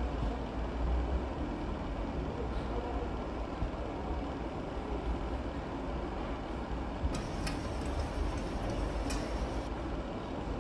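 Steady low background rumble, with a run of about six sharp taps of a chef's knife on a plastic cutting board between about seven and nine and a half seconds in, as a vegetable is cut.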